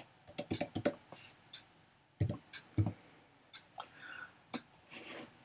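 Computer keyboard keys clicking as a number is typed into code: a quick run of about half a dozen keystrokes within the first second, two heavier key presses a little after two seconds in, then a few faint ticks.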